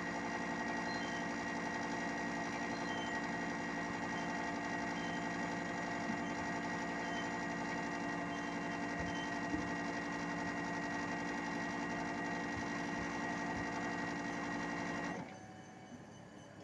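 Hitachi 1-ton split air conditioner outdoor unit running with a steady machine hum and a high whine, then switched off about fifteen seconds in, its sound dropping sharply and fading.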